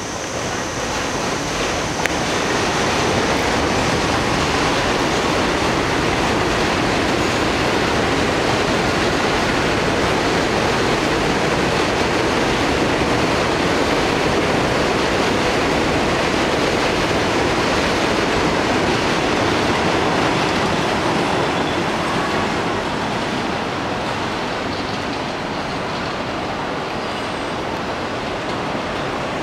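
R62A subway train on the 7 line pulling out of an elevated station, its wheels and motors on the steel structure making a loud, steady rumble. The rumble eases somewhat over the last several seconds as the train draws away.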